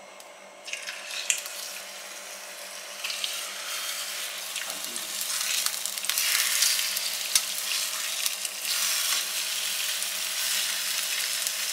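Chicken breasts sizzling in hot oil in a frying pan. The sizzle starts about a second in as the first piece goes in and grows louder in steps as the second is laid in, with a few light clicks of metal tongs.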